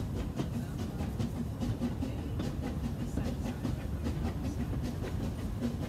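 Steam-train passenger carriage rolling along the track, heard from inside the carriage: a steady low rumble with frequent clicks and clanks from the wheels on the rails.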